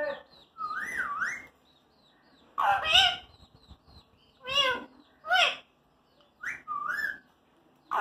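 Caged rose-ringed parakeet whistling and calling: about six short, pitched calls a second or so apart, several sliding up and down in pitch.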